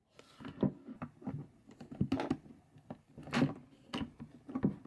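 Plastic parts of a Toyota glove box handle and latch being fitted together by hand: a run of irregular small clicks and knocks, a few of them louder.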